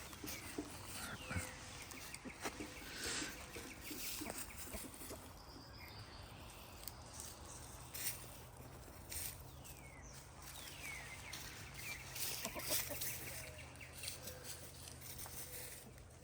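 Backyard chickens foraging, with soft clucks and scattered short falling chirps and occasional light clicks and rustles. A faint steady low hum comes in about a third of the way through.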